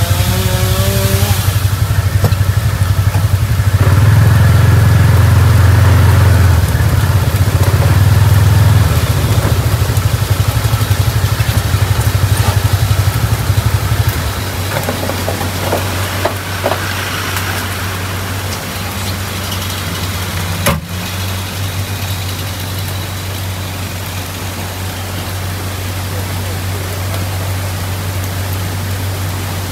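Off-road utility vehicle's engine running at low speed, louder through the first half, then settling to a steady low idle about halfway through. A single sharp knock comes about two-thirds of the way in.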